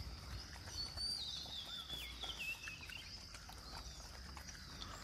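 A bird calling, a descending series of wavering notes from about a second in to about three seconds in, over a faint steady high hum and scattered faint ticks.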